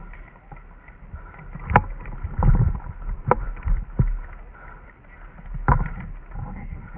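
Four sharp snaps at uneven intervals over a low, wind-like rumble of movement and wind on the microphone.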